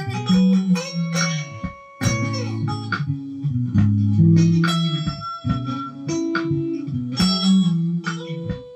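Electric guitar played in a slow soul style, single notes and chords ringing out, with a brief pause just before two seconds in.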